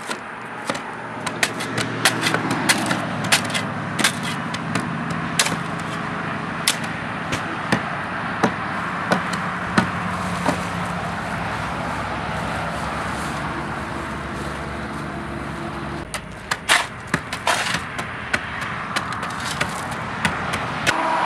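Shovels scraping and chopping into dirt and gravel fill, with many irregular sharp knocks as the fill, mixed with bagged concrete, is packed tight around a wooden post. A steady mechanical hum runs underneath.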